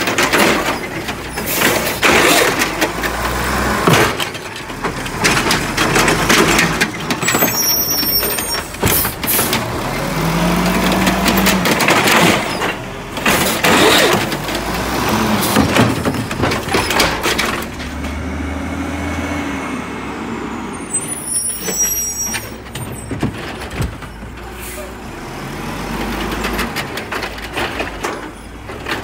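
Mack LE garbage truck's Amrep side-loader arm lifting and dumping a cart, with repeated loud bangs and rattles as the cart is shaken out over the hopper. The truck's diesel engine revs up and down to drive the arm's hydraulics.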